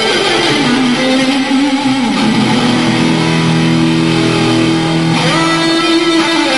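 Background music led by guitar, with held notes that slide down in pitch near the start and slide up again about five seconds in.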